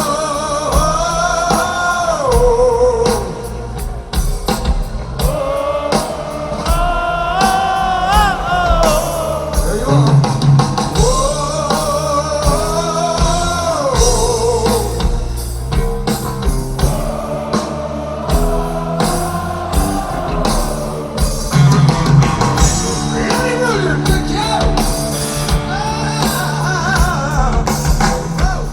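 Live heavy metal band playing: electric guitar, bass and drums under a male lead vocal with a strong vibrato.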